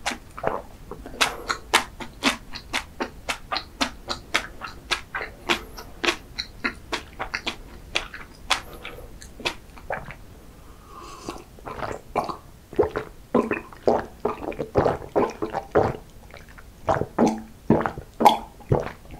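Close-miked chewing of soft chocolate pastry, with wet mouth smacks and clicks about three a second. Near the end come fuller swallowing gulps as a drink is taken from a glass.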